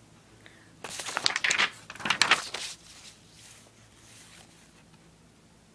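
Two bursts of close rustling and rubbing, each about a second long: handling noise as the iPod filming the drawing is moved around over the paper.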